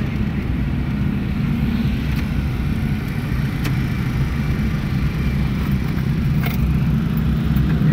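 Car cabin noise while driving slowly: the engine and tyres make a steady low rumble, heard from inside the car.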